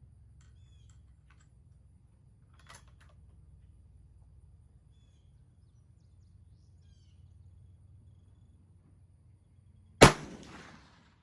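A single rifle shot from a 350 Legend about ten seconds in: one sharp, loud report with a short echo trailing off. Before it, only faint scattered chirps and a small click over a low steady background.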